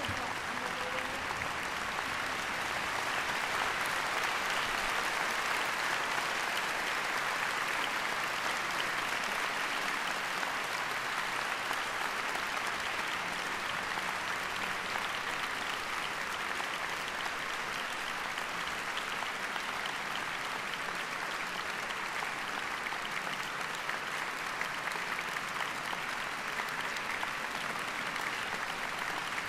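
A large concert-hall audience applauding steadily: dense, even clapping that swells a little a few seconds in, with the hall's reverberation.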